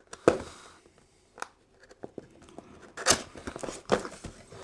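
A small cardboard box being opened by hand: scattered sharp clicks and short scraping, tearing noises as the flaps are pulled open, busiest about three seconds in.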